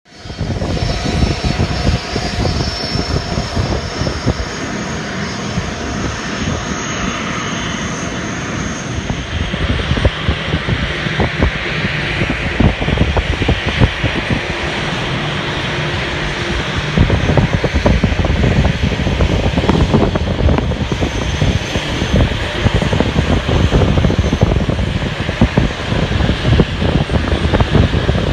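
Jet engines of a four-engine Airbus A340 airliner running at taxi power as it rolls past: a steady rumble and hiss that grows louder from about halfway through.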